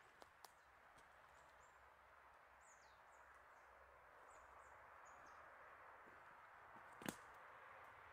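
Very quiet woodland ambience: a faint steady hiss with small high bird chirps and short downslurred calls through the middle. A few light clicks near the start and one sharper click about seven seconds in.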